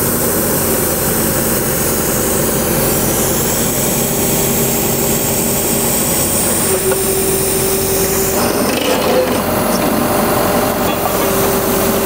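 Borehole drilling rig's engine running steadily and loudly, a constant drone with noise, and a steady whine that comes in about four seconds in and again near the middle.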